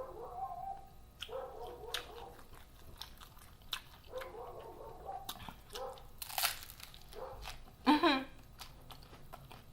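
Crunchy taco being bitten and chewed close to the microphone, with a sharp crunch every second or so.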